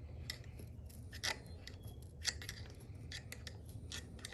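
Irregular metallic clicks and scrapes of hand tools working on a motorcycle rear shock, with sharper clicks about a second in and just after two seconds.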